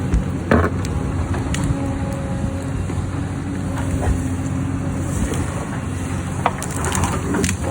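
Hyundai excavator's diesel engine running steadily, with sharp knocks of rock being worked by the machine, a few early on and several close together near the end.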